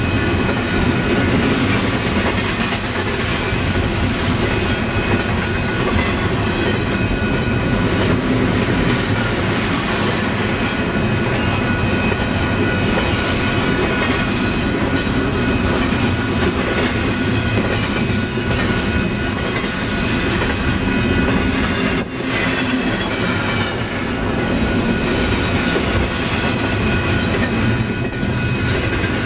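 Double-stack intermodal freight train's well cars rolling past: a steady, loud rumble of wheels on rail with clickety-clack over the joints.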